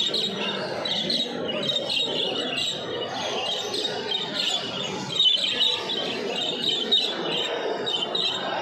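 Many caged show birds chirping and twittering at once, a dense, continuous chatter of high calls over a low murmur of voices.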